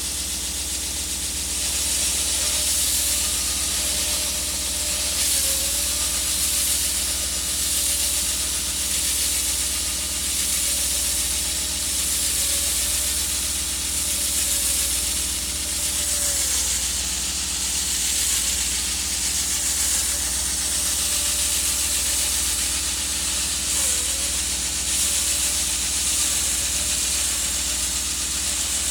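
Concrete saw running steadily in a deep cut: a constant hiss over a low hum, with a faint whine that wavers slightly in pitch.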